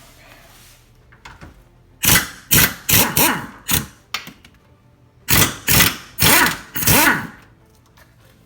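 Impact wrench fired in short bursts on bolts, five quick pulls and then four more, the motor's pitch rising and falling on each pull.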